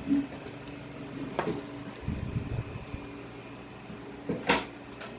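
Close-up eating sounds of a man eating a grilled pork chop with his fingers: chewing and licking his fingers, with a few sharp lip smacks, the loudest about four and a half seconds in. A steady low hum runs underneath.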